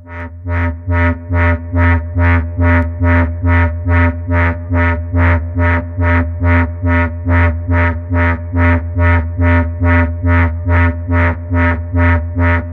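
Arturia Buchla Easel software synthesizer playing a rhythmic patch: even pulses about three a second over a steady low bass drone and held tones.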